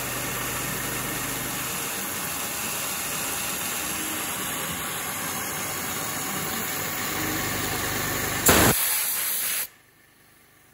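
Air blast nozzle hissing steadily at a carbide end mill finish-milling a keyway slot in 1018 steel, with the mill's spindle and cutting noise beneath it. The hiss gets louder for about a second near the end, then everything cuts off suddenly to near quiet.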